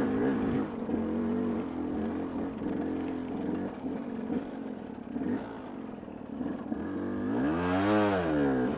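Dirt bike engine running at low speed over rough ground, its pitch wavering as the throttle is worked unevenly; near the end it revs up once and drops back.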